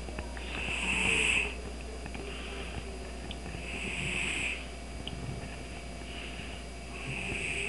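Domestic cat snoring in its sleep: three hissing snores about three seconds apart, with softer breaths between them.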